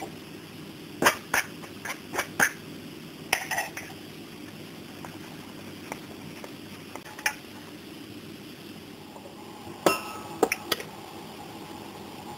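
A metal flour sieve knocked and tapped against a metal bowl while sifting: a series of sharp metallic clinks and knocks in the first few seconds, one more about seven seconds in, and a quick cluster of clinks with a short ring near the end, over a low steady background hum.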